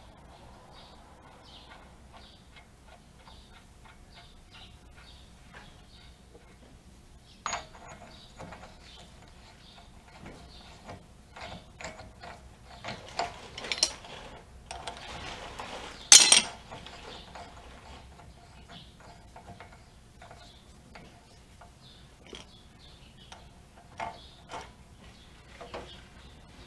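Hand tools and steel brake and hub parts clicking and clinking during reassembly, with light ticks at first, then busier metal knocks and one loud metallic clank about sixteen seconds in.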